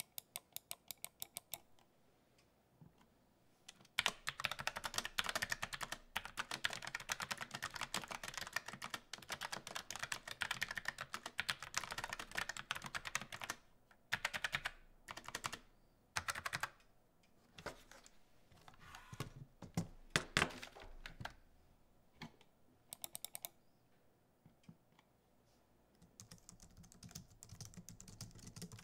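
Typing on a Logitech MX Mechanical low-profile mechanical keyboard: fast runs of sharp, clacky keystrokes broken by short pauses. Near the end it gives way to softer, quieter, more muffled typing on a Logitech MX Keys scissor-switch keyboard.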